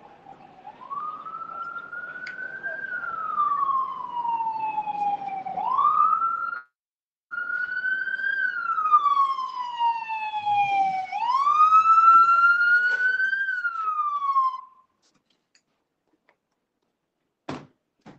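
A police vehicle's electronic siren wailing, sliding slowly up and down in pitch in cycles of about five seconds. It grows louder as the vehicle comes closer and cuts off about three-quarters of the way through. A single sharp knock follows near the end.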